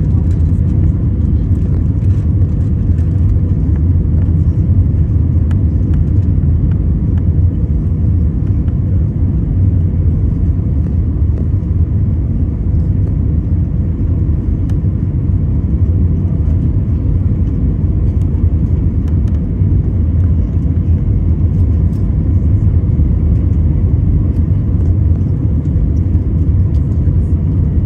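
Steady low rumble of an airliner's cabin on final approach: jet engine and airflow noise heard inside the cabin beside the wing.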